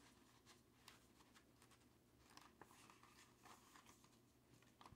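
Near silence, broken by faint scattered ticks and rustles of a vinyl record and its paper sleeve being handled and slid back into a cardboard jacket.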